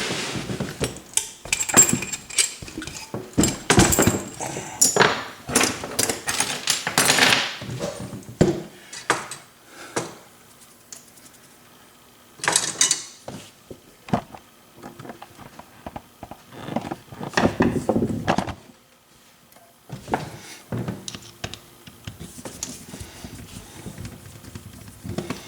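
Metal clicking, scraping and rattling of a Corbin Russwin lock cylinder and small tools being handled as the picked lock is locked back up and taken apart. The clatter is dense for the first several seconds, then comes in short scattered bursts.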